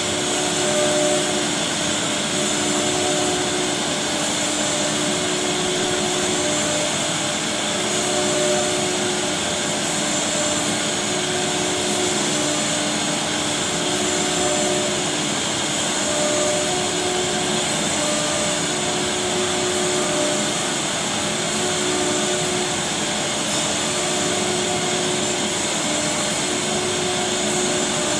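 Multi-head CNC wood router with an air-cooled spindle cutting short slots in a cabinet board, a steady high whine over the rush of the dust extraction. A lower hum comes and goes every second or two.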